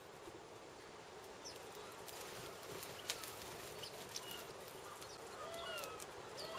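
Faint bird calls, short rising-and-falling chirps coming in about five seconds in over a steady outdoor hiss, with a couple of sharp clicks before them.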